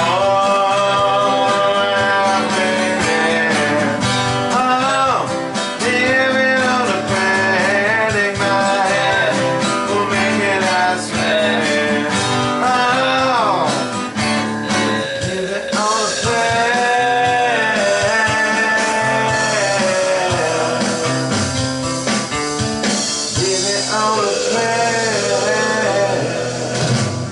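A person singing a melody over a strummed guitar accompaniment.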